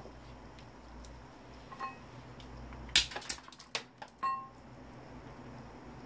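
A few light clicks and metallic clinks from small scrap parts of a dismantled microwave oven being handled and set down. The loudest comes about three seconds in, followed by a short ringing clink about a second later.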